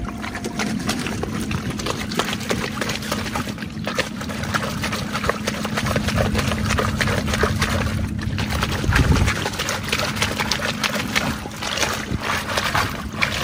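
Water pouring and splashing over freshly knocked-off oysters as they are rinsed clean of mud, with dense irregular clicking and splattering, over a steady low hum.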